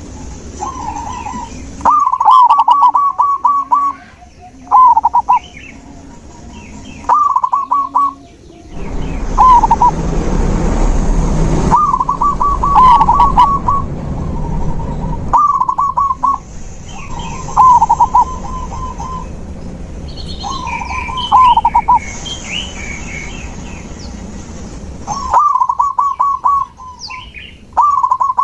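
Zebra doves (perkutut) cooing: short trilled phrases repeated every couple of seconds, with fainter, higher chirps from smaller birds. About nine seconds in, a rushing noise runs for around three seconds.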